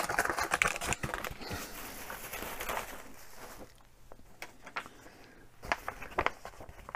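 Handling noise at a workbench: a busy run of small clicks and rustling for about the first three and a half seconds, then quieter with a few single clicks near the end.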